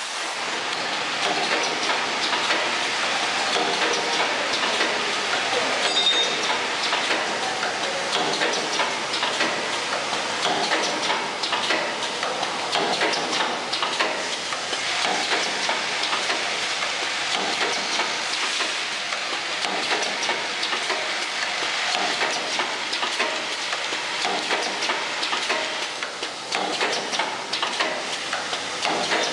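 Automatic clothes-peg assembly machine running: a steady, dense clatter of small plastic parts rattling through its vibratory bowl feeders, with rapid clicking from the assembly station.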